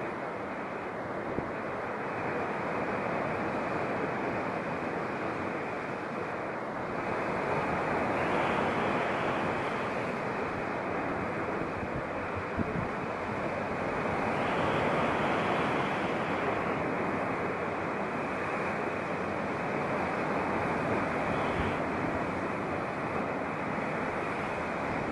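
Sea waves breaking on a rocky shore below: a steady rushing wash that swells louder twice.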